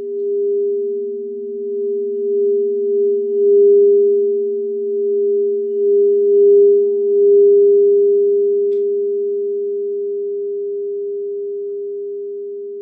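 Crystal singing bowls ringing: two steady pure tones, the higher one louder. The sound swells and pulses in waves, then slowly fades over the last few seconds.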